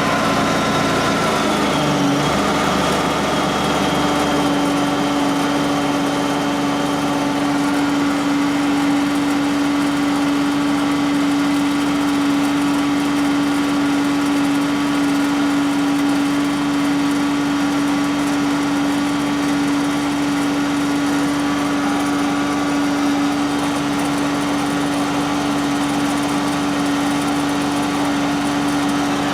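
John Deere X585 lawn tractor's fuel-injected engine running steadily just after a cold start. Its note shifts in the first couple of seconds, then settles and holds even.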